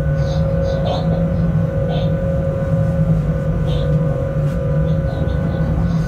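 Freight locomotive running, heard inside the driver's cab: a steady low rumble under a constant hum of several held tones, with scattered short high-pitched clicks and squeaks.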